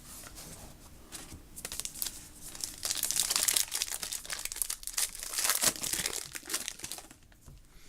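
Trading-card pack wrapper being torn open and crinkled, a dense crackle that dies away near the end.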